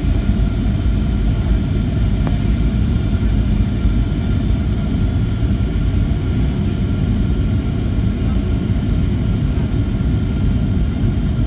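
Steady cabin noise of a Boeing 737-800 on the ground: a low rumble with a faint whine from its CFM56-7B jet engines, heard from inside the passenger cabin.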